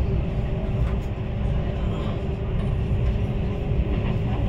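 Steady cabin noise inside a CR400AF-Z Fuxing high-speed train in motion: a low, even rumble with a faint steady hum above it.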